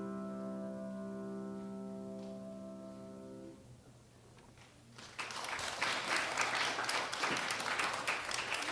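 Grand piano's final chord held and fading away, released about three and a half seconds in. After a short hush, audience applause starts about five seconds in and goes on.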